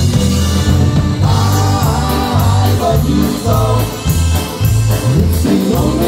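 A live polka band playing a polka, with piano accordion, electric bass, drums and a singing voice. The bass steps along on a steady, bouncy beat.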